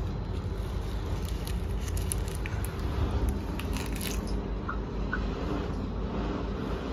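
A paan, a fresh betel leaf wrapped around betel nut, is folded and chewed, giving short crisp crackles and crunches, most of them in the first four seconds. A steady low hum runs underneath.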